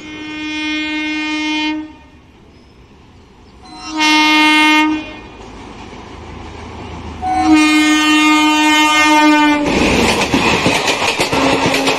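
Diesel-electric multiple unit (DEMU) train sounding its horn in three long blasts as it approaches, then its coaches pass close by with a rapid clatter of wheels over the rails.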